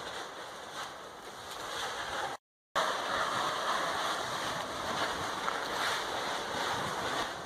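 Steady rushing noise of volcanic gas and steam jetting out of a fresh lava fissure. It breaks off in a brief total silence about two and a half seconds in.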